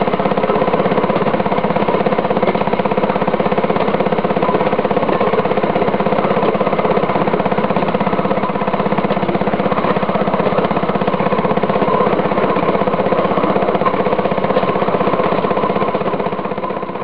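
Fairmont M19 railway section car (speeder) engine running steadily under way, with an even firing rhythm. It fades out near the end.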